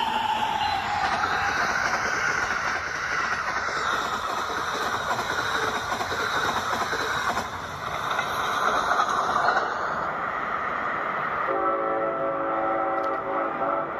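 Toy train running on plastic track with a steady rushing noise. Near the end a horn sounds as one steady chord for about two and a half seconds.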